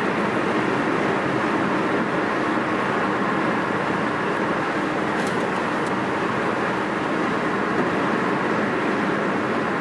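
Steady road and tyre noise heard from inside the cabin of a moving car.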